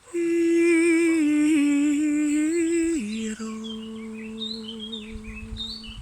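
A human voice holds one long, steady humming note, then drops to a lower, quieter held note about three seconds in. Birds chirp through the second half.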